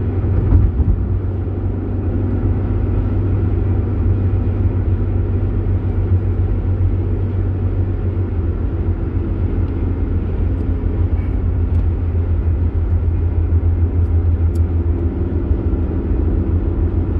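Car driving along a road at steady speed: a continuous low road-and-engine rumble.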